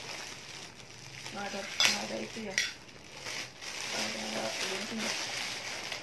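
Plastic bags crinkling and rustling as groceries are handled and unwrapped by hand, with a sharp click about two seconds in.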